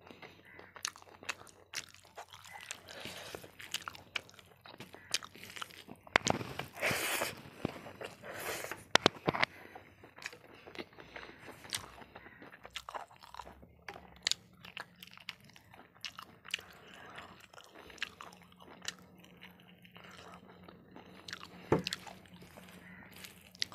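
Close-miked crunching and chewing of boiled-then-fried pig's ear, in irregular crisp crunches that are loudest around the middle; the ear is tough and takes long chewing.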